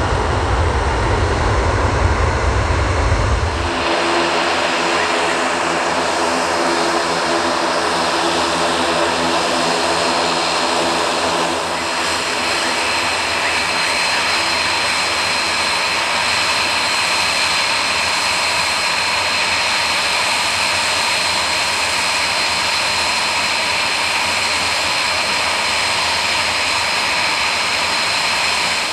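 A loud low jet rumble from a Loganair Embraer ERJ-145 cuts off abruptly about four seconds in. From then on an Aer Lingus ATR 72 turboprop's engines and propellers run steadily with an even, many-toned propeller drone. A high steady whine joins in about twelve seconds in.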